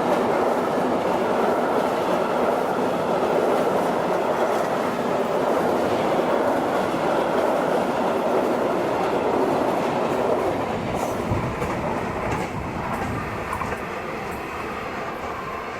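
A freight train's wagons rolling past, their wheels clattering over the rails, the sound slowly fading over the last few seconds as the train draws away.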